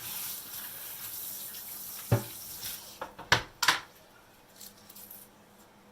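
Kitchen tap running into a sink, stopping about halfway through, with three sharp knocks of something hard handled in the sink around then.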